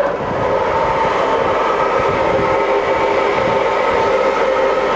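TOS SN50B centre lathe's headstock running at a low spindle speed: a steady mechanical running noise with a constant gear whine.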